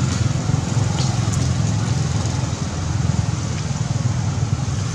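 Steady outdoor background noise: a loud, even low rumble with a hiss above it, and two faint ticks about a second in.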